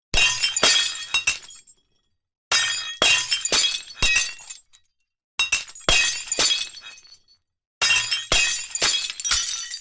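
Glass breaking, four times in a row: each is a sharp crash with a few follow-up hits as pieces fall, then shards tinkling and dying away over a second or two. Complete silence separates each break from the next.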